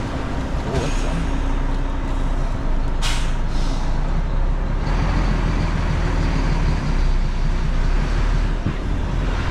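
Articulated lorry's diesel engine running as the truck pulls out, with a short air-brake hiss about three seconds in.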